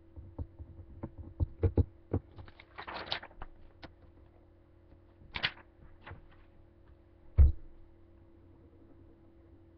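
Handling of a paper sheet and pen close to a webcam microphone: scattered light taps and knocks, two short rustling scrapes of paper, and one louder thump a little past the middle, over a steady electrical hum.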